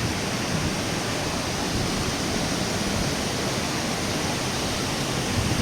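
Kravica waterfalls: falling water making a steady, even rush of noise.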